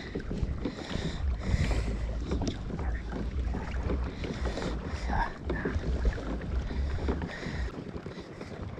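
Wind buffeting the microphone with a low, fluttering rumble, over water slapping and splashing against a kayak hull; the rumble eases off near the end.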